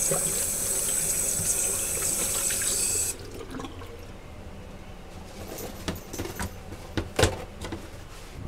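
Water running from a bathroom sink faucet over hands being washed, cut off suddenly about three seconds in. Then quieter rustling as the hands are dried with a paper towel, with one sharp knock near the end, the loudest sound.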